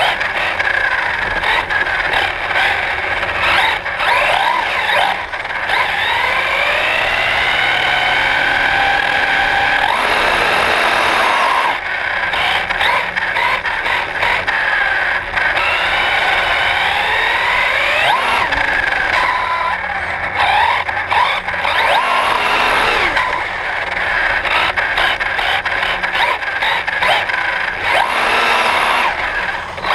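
Himoto Shootout 1/8-scale brushless electric RC buggy driving. Its brushless motor and drivetrain whine rises and falls in pitch as the throttle is worked, over a steady rush of tyres on a concrete floor.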